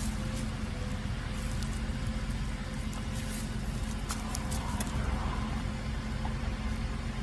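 Steady low outdoor rumble with faint rustles and light clicks, such as small feet shifting in dry leaf litter.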